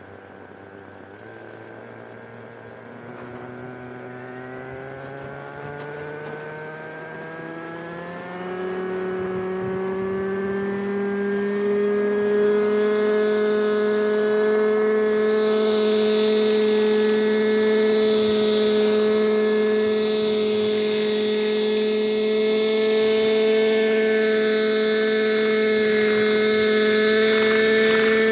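Hirobo Shuttle radio-controlled helicopter's glow engine spooling up, rising in pitch and growing louder over the first eight seconds or so, then running at a steady high pitch as the helicopter lifts into a hover.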